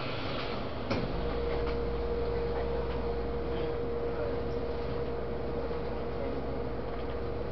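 Inside a Taiwan Railways EMU800 electric multiple unit: a single thud about a second in, then a steady low hum and a constant mid-pitched whine from the train's equipment, unchanging in pitch.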